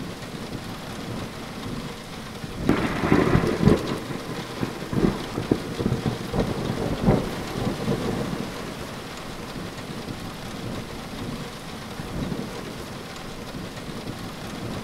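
Thunderstorm sound effects: a steady rumble with a rain-like hiss, a sudden loud crackling thunderclap about three seconds in, then several sharp thunder cracks over the next few seconds before it settles back into a rumble.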